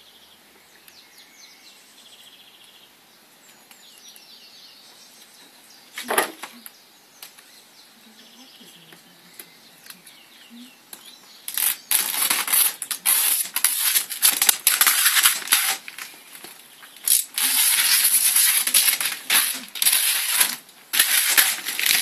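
Vinyl car-wrap film crinkling and crackling loudly in rapid bursts as it is handled and crumpled, starting about halfway through. Before that, faint bird chirps and a single sharp click.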